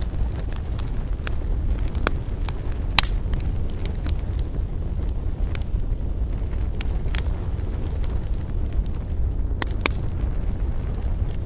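Campfire burning: a steady low rumble of flames, with scattered sharp crackles and pops from the burning wood. The loudest pop comes about three seconds in.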